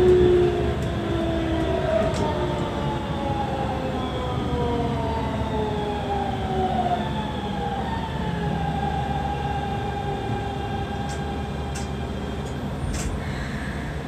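Keikyu New 1000 series train's Siemens GTO inverter and traction motors whining over the rumble of the wheels, several tones sliding slowly down in pitch as the train brakes to a stop at a station.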